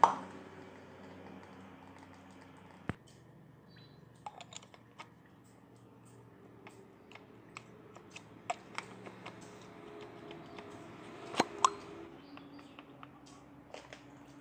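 Irregular metallic clicks and knocks of a cap-type oil filter wrench on a ratchet extension, loosening and unscrewing a spin-on oil filter. There is a sharp knock at the start and another about three seconds in, then scattered light clicks, with two louder knocks close together near the end.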